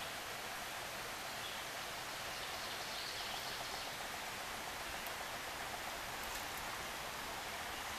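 Steady rush of flowing stream water, an even hiss, with a few faint ticks past the middle.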